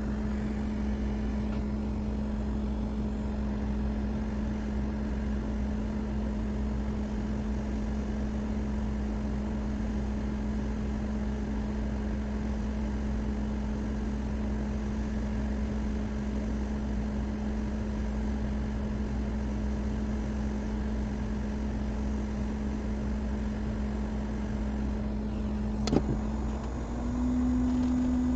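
Steady hum of a small electric motor or fan. A sharp click comes near the end, after which the hum steps up slightly in pitch and gets a little louder.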